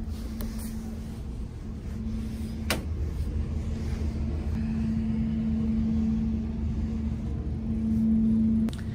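Steady low drone of the ferry's engines and shipboard machinery heard inside a passenger lounge, a constant hum over a deep rumble that swells near the end. A single sharp click about two and a half seconds in.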